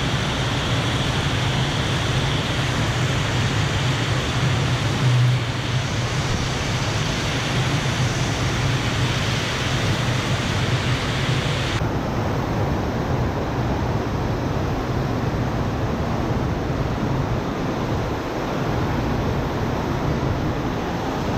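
Steady rush of water from a FlowRider sheet-wave surf simulator, the pumped sheet of water pouring up the padded slope, with a low steady hum underneath. The highest hiss drops away about halfway through.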